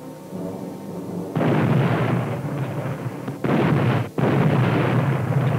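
Three torpedo explosions one after another, long deep blasts, the first about a second and a half in and the other two close together near the end: torpedo hits on the target.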